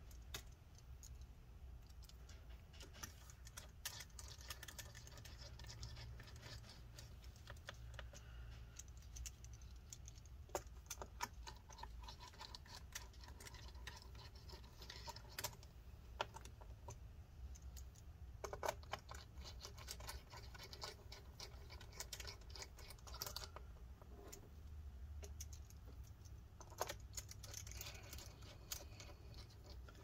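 Faint scattered clicks and scrapes of a Torx T5 screwdriver driving small screws back into a laptop's bottom cover, over a low steady hum.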